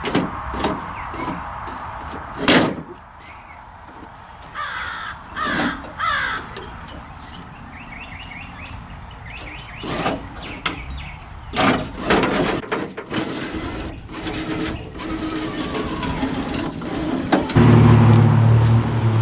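Knocks and clunks from working the 1985 Chevy K10's door window and its freshly greased tracks, with a few short, harsh, cawing squeaks around the middle. A steady low hum comes in near the end.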